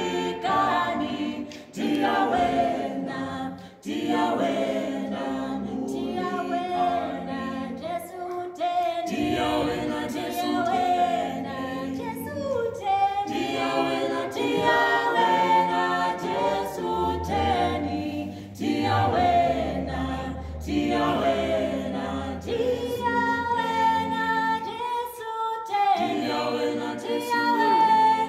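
A cappella gospel quartet of two women and two men singing in harmony, with no instruments.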